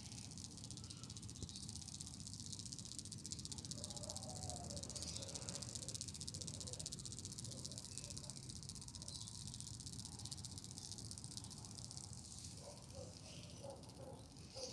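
Evening chorus of insects chirping in a steady, high-pitched, rapidly pulsing trill over a low outdoor rumble.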